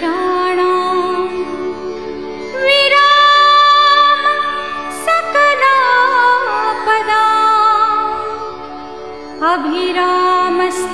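Indian devotional music: long, gliding melodic phrases over a steady drone, with new phrases coming in about three seconds, five seconds and nine and a half seconds in.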